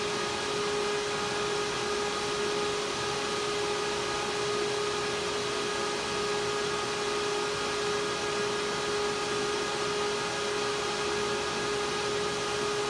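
Bitmain Antminer D3 X11 miner's cooling fans running steadily under full mining load, a constant loud rush of air with a steady whine, about 68–72 dB, mixed with other servers running in the background.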